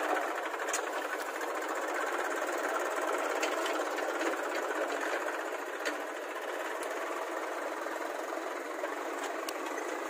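Eicher 380 tractor's diesel engine running steadily as it pulls a trolley loaded with earth, with a few faint clicks.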